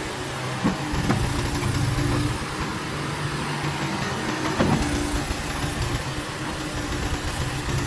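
Komatsu PC58-8 mini excavator's four-cylinder diesel engine (Komatsu 4D88E-6) running steadily, with a few short knocks, the loudest about four and a half seconds in.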